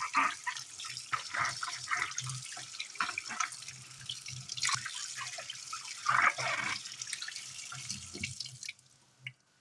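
Water running from a tap into a sink with irregular splashing, stopping abruptly near the end.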